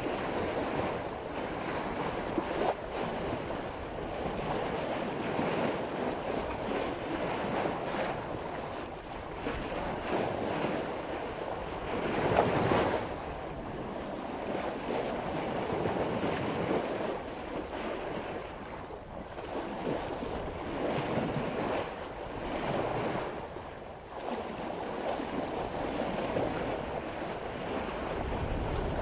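Water rushing and splashing along the hull at the bow of a sailboat cutting through ocean swell at about 5 knots, swelling with each wave, with a louder surge about halfway through. Wind buffets the microphone.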